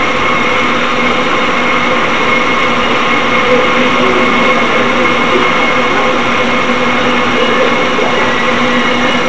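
Cable haulage machinery of the Lookout Mountain Incline Railway running steadily as a car travels down the incline: a constant hum over an even mechanical noise.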